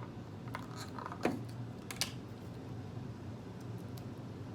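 A few short, crisp crackles from a fried chicken egg roll being handled and bitten into, then quiet chewing.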